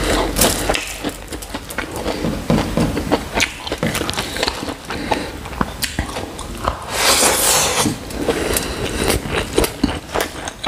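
Close-miked eating by hand: fingers squishing and mixing rice with chicken curry on aluminium foil, and wet chewing of a mouthful of the rice and curry, a crackle of many short clicks and smacks. A brief hissing rustle about seven seconds in.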